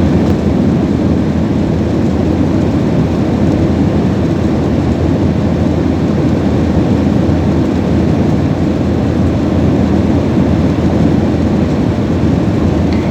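Airliner cabin noise: a steady, loud low rumble of engines and rushing air heard from inside the passenger cabin in flight.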